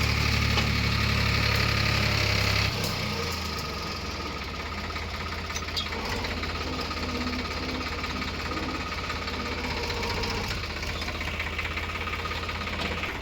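Diesel engine of heavy earth-moving machinery running steadily, with a knocking note. About three seconds in the sound changes abruptly to a quieter, lower steady running.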